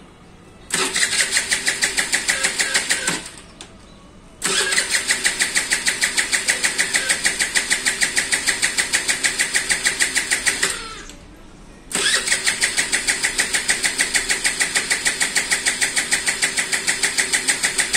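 Hero Duet scooter's single-cylinder engine being cranked by its electric starter in three long bursts, a fast even chugging of about four or five beats a second, with short pauses between. The engine does not settle into running: the scooter is hard to start.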